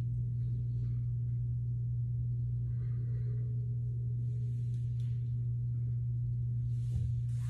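Steady low hum on one unchanging pitch, with faint rustles and a soft knock near the end.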